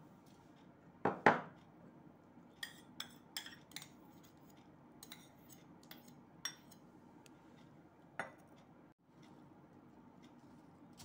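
Metal spoon clinking against stainless steel dishes: two loud clanks about a second in, then a quick run of lighter taps and a few scattered clinks.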